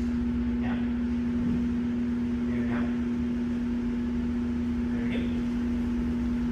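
Steady mechanical hum with one strong low pitch at even loudness throughout. Three faint short rising squeaks come through it, about a second, three seconds and five seconds in.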